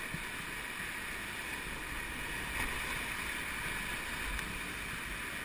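Whitewater rapids rushing and churning steadily around an inflatable raft, an even wash of river noise with no breaks.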